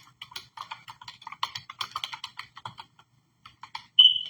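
Typing on a computer keyboard: irregular key clicks, several a second, with a short pause past the middle. Near the end, a short, loud high-pitched beep.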